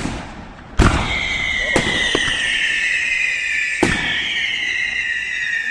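Fireworks display: a handful of sharp bangs from bursting shells, the loudest about a second in and near four seconds. A high whistling tone sets in about a second in and holds for several seconds, slowly falling in pitch.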